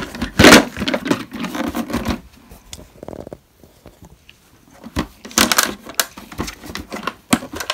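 Hard plastic toy carry case being handled: knocks and rattles of plastic as it is turned over, then after a quiet stretch a cluster of sharp clicks and knocks as its lid catches are worked.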